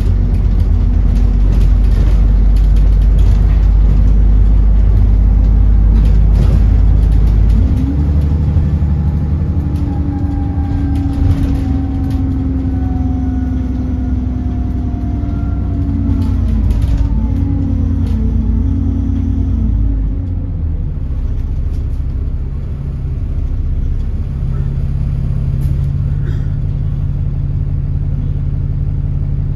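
Cabin sound inside an Alexander Dennis Enviro400 double-decker bus on the move: diesel engine and automatic gearbox running, with a transmission whine that falls slowly in pitch through the middle and light interior rattles. Near the end the engine settles to a steady idle as the bus draws up at traffic lights.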